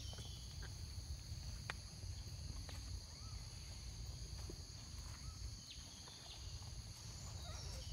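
Steady, fairly quiet insect chorus, a continuous high drone, over a low rumble, with a few faint clicks.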